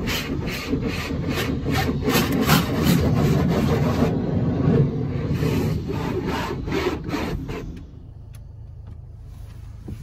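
A car being scrubbed by hand, with rhythmic back-and-forth rubbing strokes about three a second over a steady low rumble. The scrubbing stops about eight seconds in.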